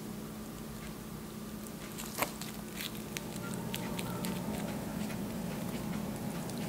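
Whipped cream being piped from a plastic piping bag onto puff pastry: soft squishing and crinkling of the bag in gloved hands, with scattered small clicks and one sharper tick about two seconds in, over a steady low hum.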